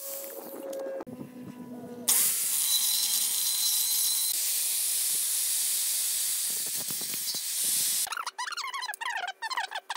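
Angle grinder with a cut-off disc cutting steel square tubing: a loud, steady hiss that starts about two seconds in and stops about two seconds before the end. Near the end, quick high-pitched chattering of sped-up speech.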